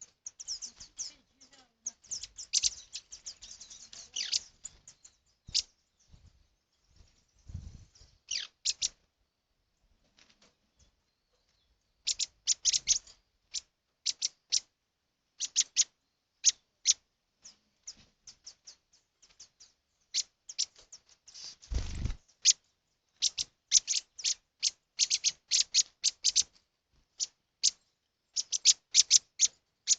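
Small birds chirping: runs of short, sharp, high-pitched chips and tweets with a few seconds of quiet between runs. A brief low thump comes a little past the two-thirds mark.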